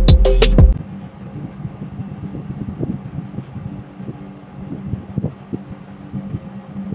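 Background music with a beat cuts off under a second in. It leaves a steady low mechanical hum and wind on the microphone, with light irregular clicks of hand tools working on the wiring of an air-conditioner condenser.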